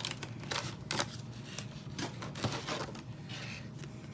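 Irregular light clicks, taps and a brief rustle from hands handling the contents and packaging of a Pokémon trading-card collection box.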